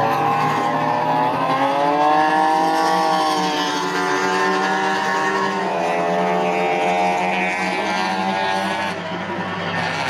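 Engines of several classic saloon race cars running hard on a circuit, more than one heard at once, their pitches rising and falling as they accelerate and pass.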